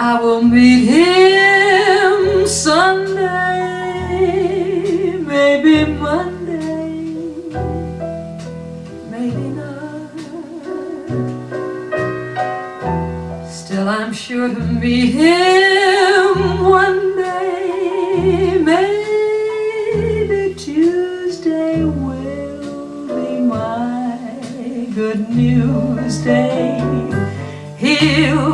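A jazz female-vocal recording played through a vintage Yamaha HMA-9500MK2 power amplifier and GT-CD1 CD player into Nagaoka D-70 speakers, heard in the room. A woman sings two long phrases with vibrato over guitar and a stepping bass line.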